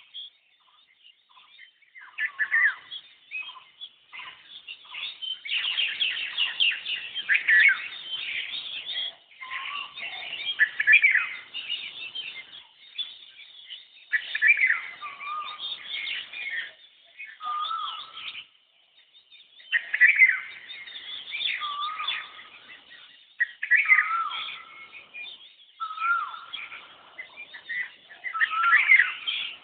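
Birds chirping and calling, including an Asian koel (koyal) repeating its call about every two seconds in the second half.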